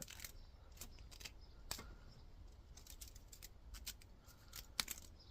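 Faint, scattered clicks and ticks of copper winding wire being pulled and unwrapped by hand from a cut electric-motor stator coil, with a couple of sharper clicks near the end.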